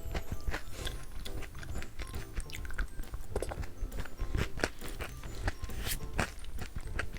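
Close-miked biting and chewing of yakgwa, Korean honey cookies, with many irregular sticky clicks and crunches, over soft background music.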